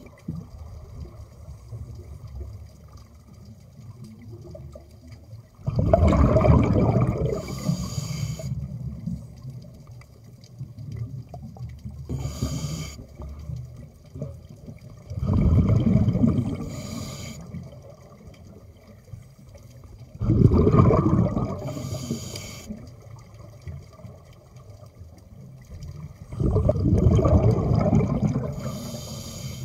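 Scuba diver breathing underwater through a regulator: four loud, bubbling exhalations of about two seconds each, some five seconds apart, with short hisses of the regulator on the in-breaths between them.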